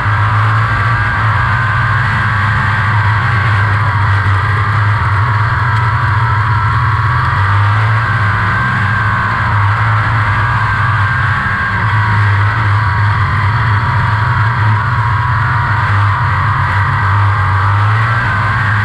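360 sprint car's V8 engine running hard at racing speed, heard from the onboard camera in the cockpit. It is a loud, steady drone whose pitch wavers slightly every few seconds.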